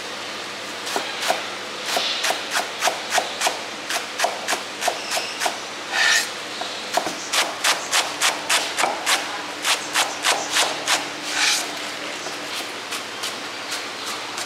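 Chinese cleaver chopping green onions on a thick round wooden chopping block: a steady run of chops, about two or three a second, broken by a few longer scraping sounds. The chops grow fainter near the end.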